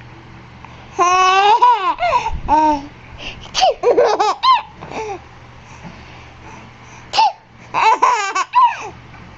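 A baby laughing and squealing in high-pitched bouts, three of them with quieter gaps between.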